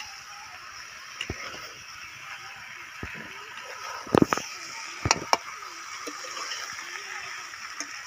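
Metal spatula scraping and knocking against an aluminium wok as young jackfruit and potato are stir-fried in masala, over a steady frying hiss. The knocks are loudest in a quick run about four to five and a half seconds in.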